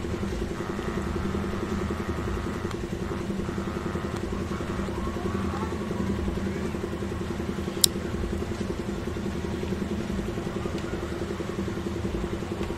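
Steady low droning hum, with a single sharp click about eight seconds in.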